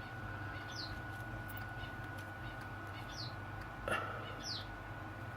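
A small bird chirping: three short, high, falling chirps spaced a second or more apart, over a faint steady electrical whine and hum, with a single click about four seconds in.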